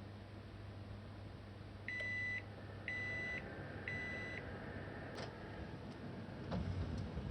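Home oven beeping three times, each beep a steady high tone about half a second long, one a second. A click follows, with a few light knocks near the end.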